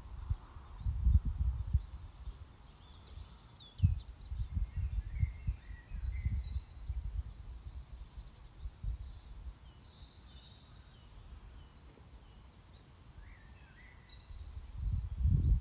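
Wind buffeting the microphone in irregular low gusts, strongest near the start and end, while small birds chirp and trill in the background.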